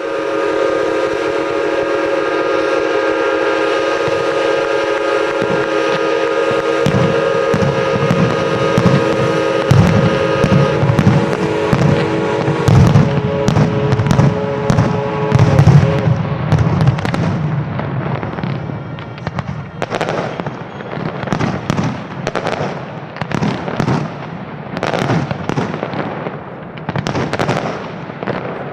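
A long, steady horn chord of several held tones sounds for about the first twelve seconds while fireworks shells start bursting about five seconds in. The bangs then come thick and fast, with loud booms and crackling bursts going on after the horn stops.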